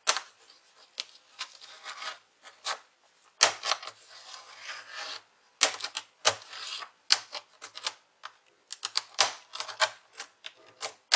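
Irregular plastic clicks and scraping as a flat tool pries along the top edge of an HP Pavilion 15 laptop keyboard, releasing its retaining latches. Longer scrapes come about a third and about halfway through.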